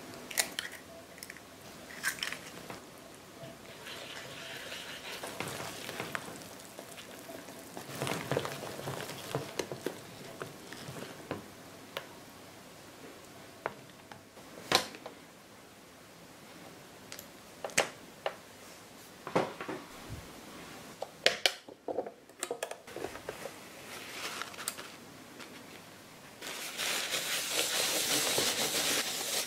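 Kitchen handling sounds of making pancake batter: an egg cracked into a bowl of pancake mix, then a wire whisk stirring the batter, with sharp clicks as it knocks the bowl. Near the end, a louder steady rubbing as a paper towel wipes the nonstick plates of a pancake maker.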